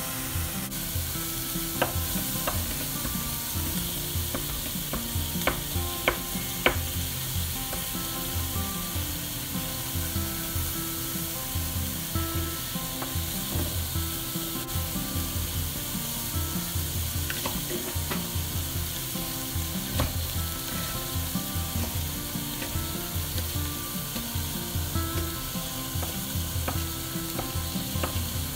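Pork heart sizzling in a frying pan, a steady frying hiss, with a few sharp knocks scattered through it.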